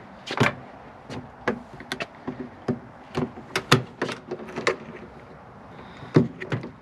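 A hand working the flush cowling latch on an AS350 B2 Squirrel helicopter's side panel, giving a run of irregular sharp clicks and knocks, a dozen or more. The loudest come about half a second in, near the middle and near the end.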